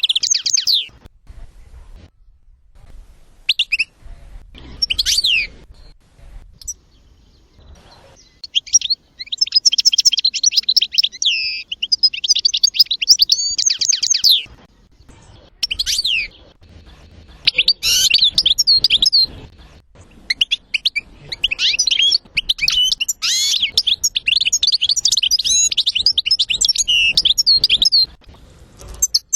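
European goldfinch song: bursts of rapid, high twittering phrases broken by short pauses, with the longest runs of song in the second half.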